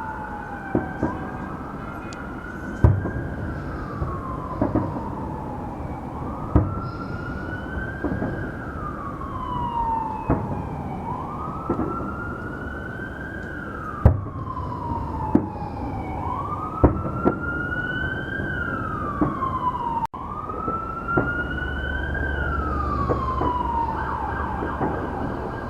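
An emergency vehicle siren wailing, its pitch rising and then falling slowly about every four seconds, with a dozen or so sharp bangs of fireworks going off over it.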